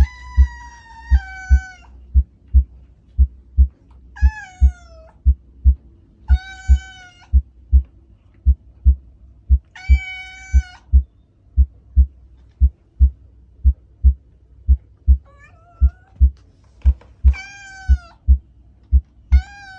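Cat meows, about seven of them, each falling in pitch at the end, over a steady heartbeat: a low double thump about once a second.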